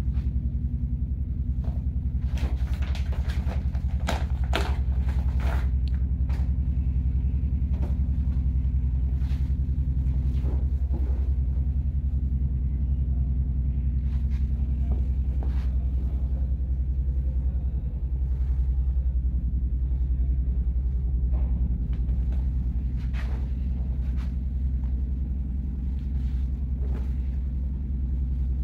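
Steady low hum throughout, with crackling rustles of dhanak cloth being unfolded and handled, thickest a few seconds in and then scattered.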